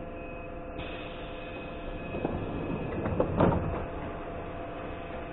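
EN57 electric multiple unit with a steady electrical hum, and a few clunks and knocks between about two and four seconds in.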